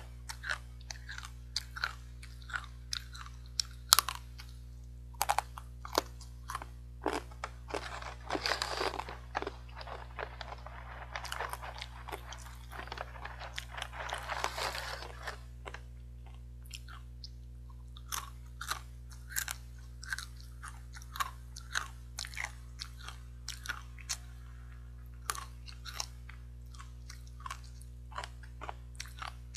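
Crisp, hard fried sweet potato sticks crunched and chewed in quick, irregular bites. For several seconds in the middle, the foil snack bag crinkles as a hand reaches in for more.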